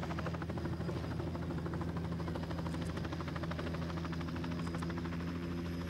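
Steady mechanical drone: a low, even hum with a fast, regular chopping pulse over it.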